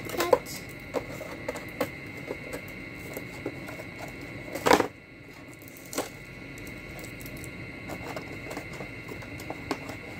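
Scissors snipping at the plastic ties that hold a doll in its box, with scattered clicks and rustling of the packaging. One louder noise comes about halfway through.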